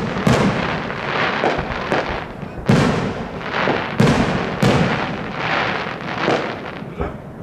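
Aerial firework shells bursting overhead: a string of sharp bangs, about five loud ones with smaller pops between, each trailing off in a crackling, echoing tail.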